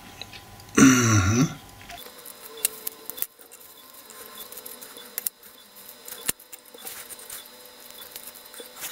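Light clicks and taps of a model locomotive's plastic shell and chassis being picked up and set down by hand. A short vocal sound comes about a second in.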